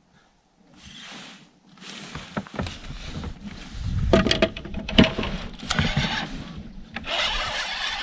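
Noises of a fishing kayak being moved about: water swishing with a series of knocks and clacks on the hull, the loudest a little past the middle, then a steady hiss near the end.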